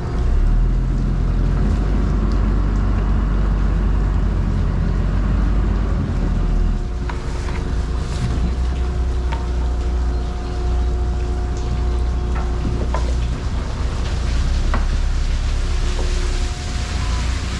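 Fishing boat's engine running steadily at low speed, a deep rumble with a faint steady whine above it. A few light knocks and clicks come through it.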